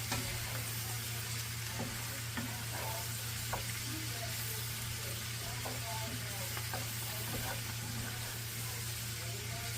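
Chopped cabbage and onions sizzling in bacon grease in a cast-iron skillet, with faint scrapes and taps of a utensil against the pan as they are stirred and broken up. A steady low hum runs underneath.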